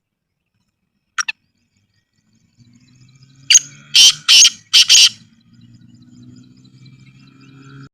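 Black francolin calling: a short double note about a second in, then a loud run of five harsh, grating notes around the middle. A faint low hum and faint high chirps sit underneath.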